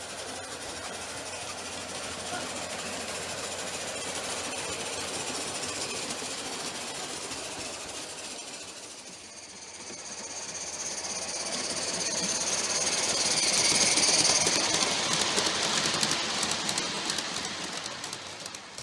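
Live-steam G-scale model locomotive pulling freight cars: rapid steam chuffing and hissing with wheels clattering over the rails. It grows louder as the train passes close, loudest about three-quarters of the way through, then fades.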